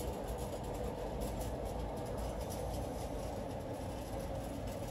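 Steady low background rumble with no distinct event.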